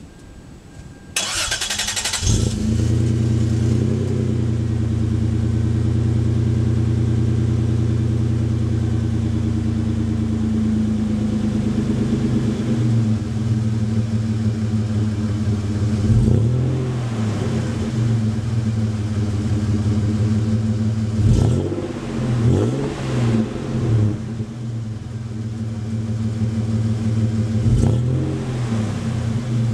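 A 1999 Toyota 4Runner's 3.4 L V6 is started and heard at the tailpipe through a Flowmaster 50 Series muffler. The starter cranks about a second in, then the engine catches into a steady, throaty idle. In the second half it is revved several times, each rev rising and dropping back to idle.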